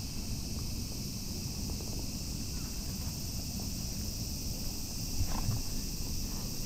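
Steady chorus of insects singing, a continuous high drone in several bands, over a low rumble.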